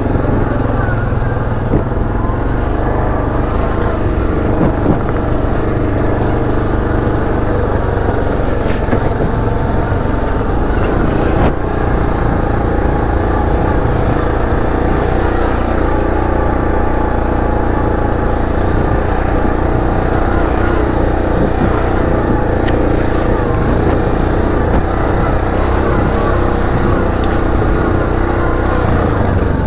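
Utility ATV engine running steadily while riding a rough dirt trail, with a few brief sharp clicks and knocks along the way.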